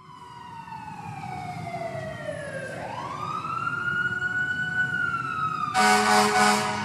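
Fire engine siren wailing: the pitch falls, climbs quickly about three seconds in, holds, then starts to fall again, over a low engine rumble. A loud horn blast comes near the end.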